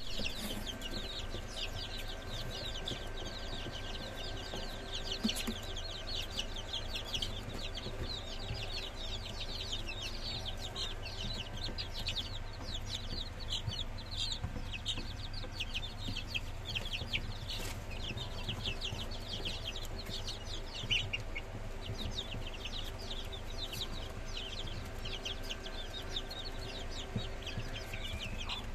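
A brood of Polish chicken chicks peeping without pause, a dense chorus of short, high, falling cheeps. A steady low hum runs underneath.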